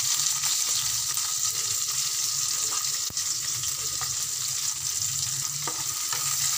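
Sliced onion sizzling steadily in hot oil, ghee and cumin seeds in a frying pan as it is stirred with a spatula. A low hum runs underneath, and there is a single sharp click about three seconds in.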